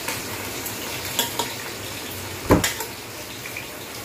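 Meat sautéing with onion and garlic in a stainless steel pot, sizzling steadily while a metal spoon stirs it. The spoon clinks against the pot a few times, with the loudest, heavier knock about two and a half seconds in.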